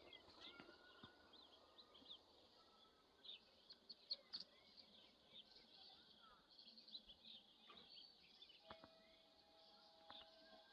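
Small birds chirping in a busy chorus of quick, high, short calls, faint throughout. About nine seconds in, a steady low tone joins and holds.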